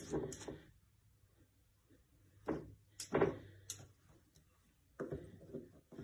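Soft knocks and claw clicks as a dachshund puppy paws and bumps against a mirror, in a few short clusters.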